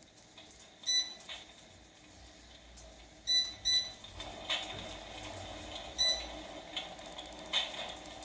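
Electric fireplace's control unit giving short electronic beeps as its settings are changed: about five beeps, two of them close together a little over three seconds in. From about four seconds in, a low hum and a light crackling come in.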